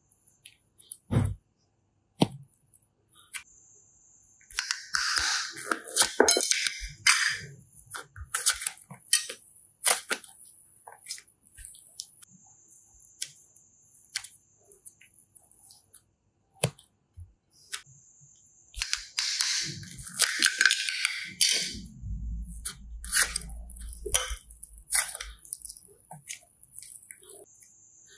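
Slime being squeezed and pressed by hand: sticky clicks and crackles, with two longer bursts of squishing, about five and about twenty seconds in.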